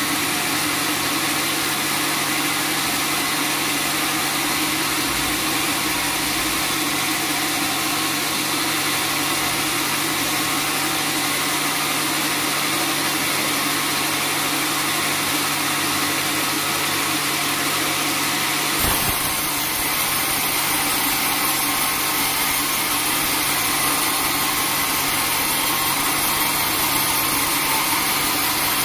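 Band sawmill running steadily as its blade saws through a teak log. The sound shifts abruptly about two-thirds of the way in.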